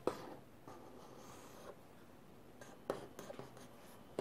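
Pen drawing on paper: faint scratching strokes as lines are drawn, with a couple of short, light taps, one near the start and one about three seconds in.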